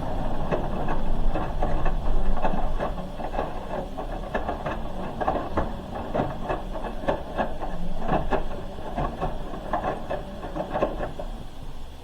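Hoover H-Wash 300 Plus front-loading washing machine drum tumbling a load mid-wash: wet laundry and water sloshing and slapping with many irregular knocks and clicks, dying down near the end as the drum slows.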